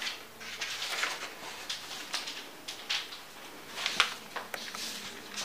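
Loose sheets of paper rustling and crackling as they are shuffled and turned by hand, in irregular bursts, with a sharper click about four seconds in.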